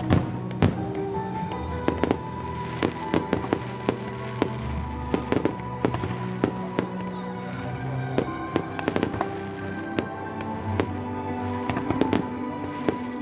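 Fireworks bursting in many sharp, irregular bangs and crackles over music with held notes.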